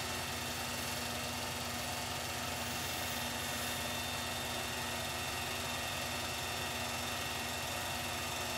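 Home-movie film projector running: a steady hum with a layer of hiss, even throughout.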